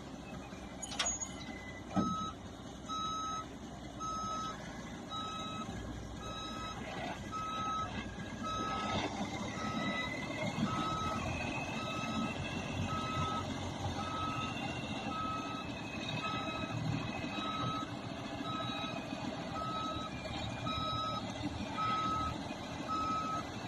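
Backup alarm of a 1984 International dump truck beeping steadily about once a second as the truck reverses, over its engine running. A sharp clunk about two seconds in, just as the beeping starts.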